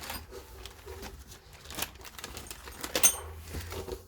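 A few light clicks and knocks with some rustling as small parts and packaging from the chainsaw's accessory kit are handled.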